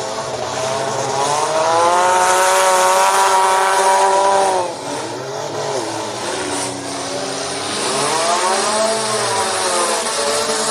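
Demolition derby car engine revving hard: its pitch climbs and holds for a couple of seconds, drops off sharply about halfway through, then climbs and falls again near the end, over the steady drone of other engines.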